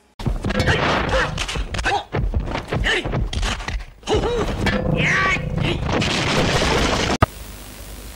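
Soundtrack of a Chinese martial-arts film fight scene: a dense run of hits and thuds. About seven seconds in it cuts sharply to a steady hiss.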